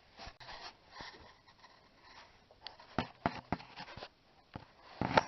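A few light clicks and taps, scattered and irregular, with a cluster about three seconds in and another near the end.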